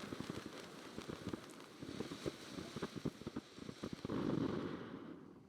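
Sunwing Fireworks 'Goofballs' ground fountain burning with a dense crackle over a hiss. The hiss swells about four seconds in, then fades as the fountain burns out near the end.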